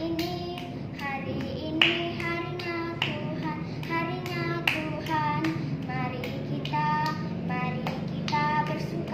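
A young girl singing a melody, with regular hand claps about once a second keeping the beat.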